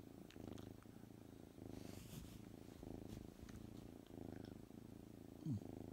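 Tuxedo kitten purring, a steady low rumble that swells and eases in turns about once a second. Near the end comes a short falling voice-like sound, the loudest moment.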